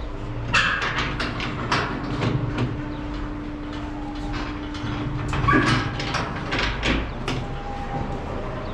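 A series of irregular metallic knocks and clanks, some ringing briefly, over a steady low hum.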